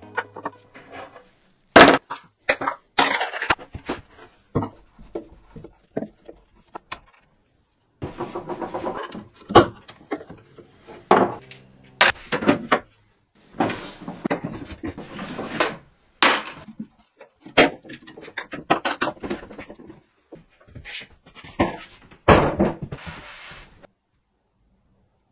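Close-up handling sounds of a wooden dresser being taken apart: a screwdriver working drawer-knob screws and a wooden drawer being moved. They come as a string of sharp knocks, clicks and short scrapes with brief pauses between them, the loudest a knock about two seconds in.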